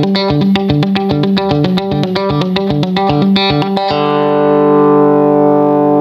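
Electric guitar played through a Supercool Spritz! compressor pedal set high: a run of quick picked single notes, then about four seconds in a note held and sustained at an even level.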